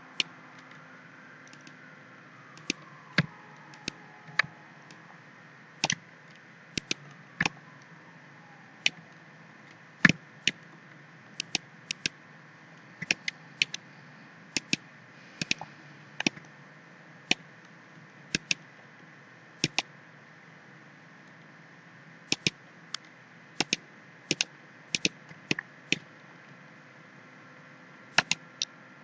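Computer mouse buttons clicking at an irregular pace, many of the clicks in quick pairs, over a steady low background hum.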